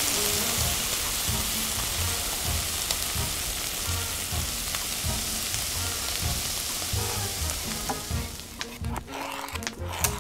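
Food frying in a hot pan: a steady sizzle that dies down about eight and a half seconds in, followed by a few sharp clicks.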